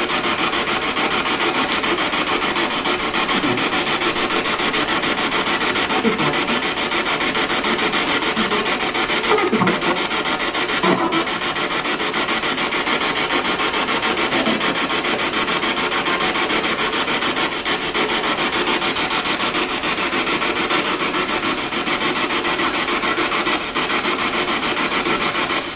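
Handheld spirit box (radio-scanning ghost box) sweeping through stations: a loud, continuous scratchy radio static, rapidly and evenly chopped, with faint snatches of broadcast sound now and then.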